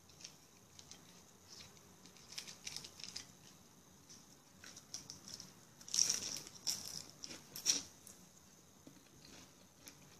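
Crisp, scattered clicks and crackles of someone eating, with a loose cluster about two seconds in and a louder one about six seconds in.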